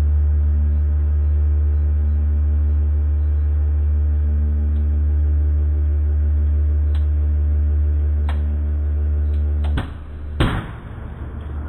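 Hydraulic press's pump motor running with a steady low hum as the ram presses down into a pile of fruit, with a few sharp cracks from the crushed pile. The hum cuts off about ten seconds in, followed by one loud knock.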